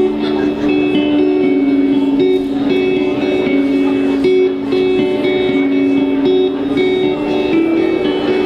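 A live indie pop band playing an instrumental passage, led by guitar: short picked notes repeat over a sustained lower note.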